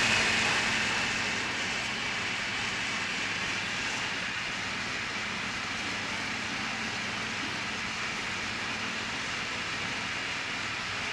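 Gas brazing torch flame hissing steadily. It eases slightly over the first two seconds, then holds even.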